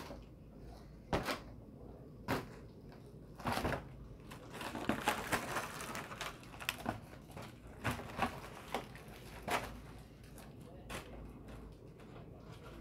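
Foil party balloon crinkling and rustling as it is grabbed and batted about by hand, with scattered sharp snaps and a denser stretch of crackling a few seconds in.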